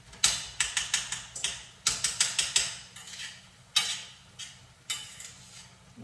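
A cooking utensil chopping and breaking up meat in a frying pan, knocking sharply against the pan in quick runs of taps that thin out to single knocks in the second half.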